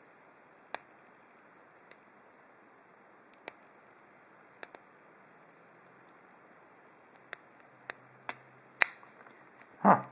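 Small, sharp clicks of a thin hook pick and tensioner working the pins of a cheap four-pin brass padlock. The clicks are scattered at first and come closer together near the end, where the loudest one comes as the lock is opened.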